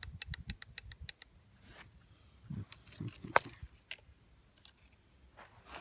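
Worn twinport intake-manifold flap of an Opel Astra H Z16XEP engine clattering in fast, even clicks, about seven a second, that stop about a second in. A few scattered clicks and knocks follow, the loudest a single sharp knock about three and a half seconds in. The clatter is the sign of play in the worn flap.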